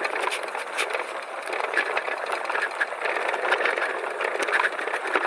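Ariel Rider X Class e-bike riding over rough dirt and gravel: steady tyre crunch with frequent small knocks and rattles from the bike.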